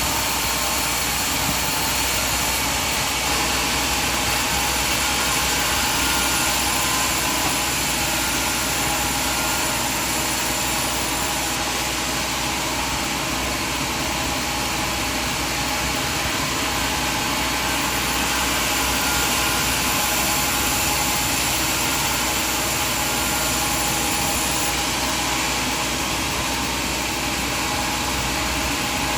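Sawmill machinery running with a steady, even drone that holds at the same level throughout.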